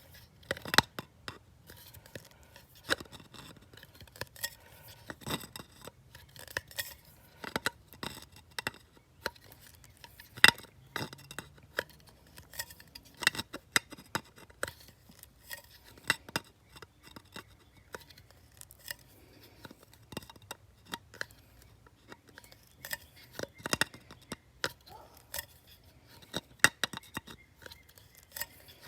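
Electrical pliers clicking and clinking against an aluminum turbo pipe, in irregular sharp metal clicks, as they are worked around the pipe's end to press in a bead.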